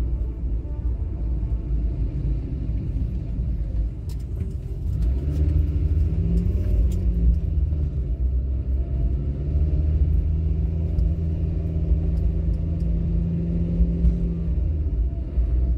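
Car driving along a road: a steady low rumble of engine and road noise. About five seconds in a steady engine hum comes in, rises slightly and holds, then fades near the end.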